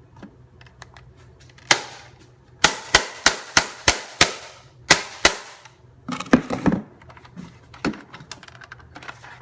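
The plastic case of a NetGear RangeMax router being whacked to break it open: about nine sharp cracking blows in quick succession, followed by lighter knocking and rattling of the loosened plastic.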